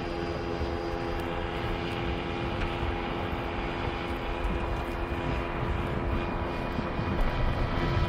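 Powered paraglider's (paramotor's) engine and propeller droning steadily in flight, an even, unchanging tone.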